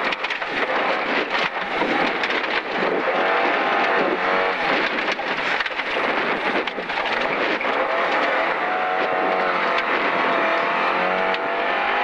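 Rally car engine heard from inside the cabin, pulling hard through the gears: its note climbs and drops back at each gear change, over a constant rush of tyre and gravel noise with stones clattering against the underbody.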